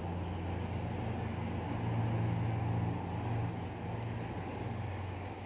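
An engine's low steady hum, swelling for about a second and a half from two seconds in, then easing off.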